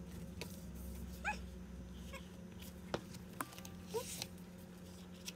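Short, high squeaks that rise in pitch, one about a second in and another near the end, over soft taps and rustling from a photobook's pages and a photocard being handled.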